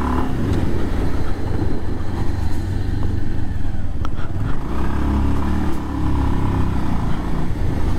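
Bajaj Pulsar 150's single-cylinder engine running as the motorcycle is ridden at low speed, its note swelling briefly about halfway through.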